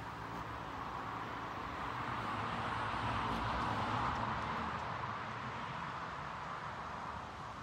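A car passing on a nearby road: its tyre and engine noise swells to a peak about halfway through, then fades away, over a steady background hiss.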